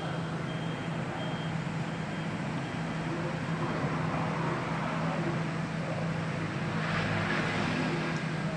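Motor vehicle traffic: a steady low engine hum, with a louder rushing swell as a vehicle passes near the end.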